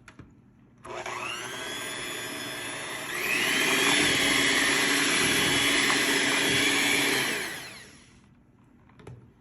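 Electric kitchen mixer running in cake batter: it spins up about a second in, switches to a higher, louder speed about three seconds in, then winds down near the end.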